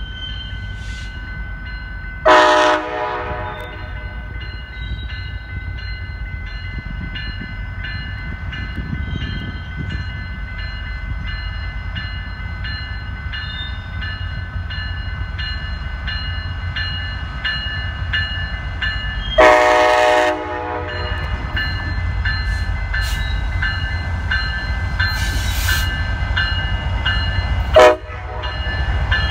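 Nathan K5LA five-chime horn on a Union Pacific SD70ACE T4 locomotive sounding three blasts: a short one about two seconds in, a longer one past the middle, and a brief toot near the end. Between them the low rumble of the approaching diesel locomotives runs on.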